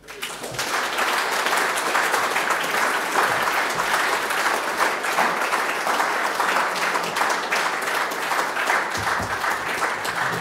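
Audience applauding, building up over the first second and then going on steadily.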